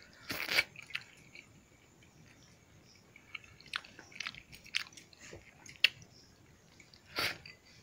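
A person chewing a mouthful of rice and dal with soft, scattered mouth clicks and smacks. Two short, louder hisses stand out, about half a second in and near the end.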